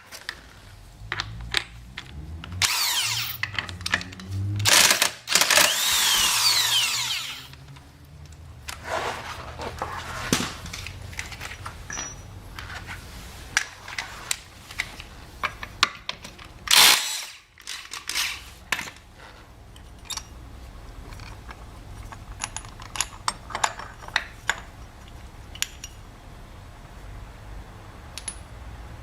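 A handheld power tool run in several short bursts, the longest changing pitch as it speeds up and slows, while a scooter's belt-drive pulley and clutch are taken apart. Between bursts, scattered light clicks and knocks of metal parts being handled, with one more short burst a little past halfway.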